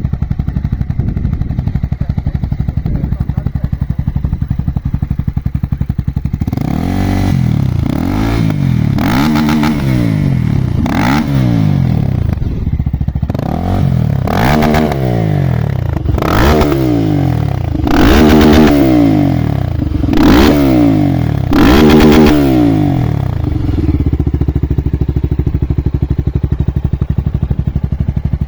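Single-cylinder Honda motorcycle engine idling, then revved hard about ten times in quick succession, each rev rising and dropping back, the last three the loudest, as it is pushed up to its rev limiter; it settles back to idle near the end.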